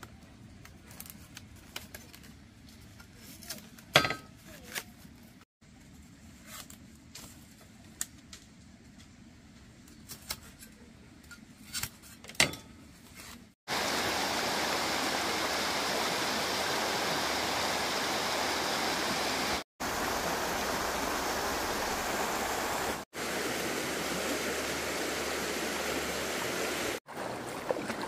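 Thin bamboo strips clicking and rustling as a basket is woven by hand, with a few sharp snaps. About halfway through, a rocky stream takes over, rushing steadily and much louder. Near the end, water sloshes as a hand net is scooped through shallow river water.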